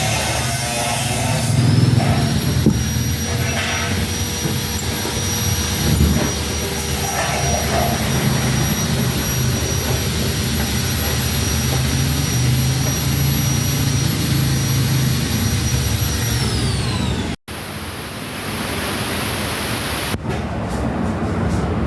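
Electric demolition hammer's motor running steadily with a high whine, which spins up about a second and a half in and winds down near the end. It then cuts off abruptly and gives way to a different hiss.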